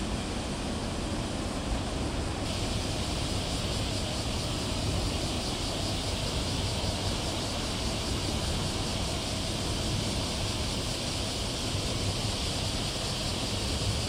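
Steady outdoor noise: a low rumble under an even hiss, with a higher steady hiss coming in about two seconds in and holding.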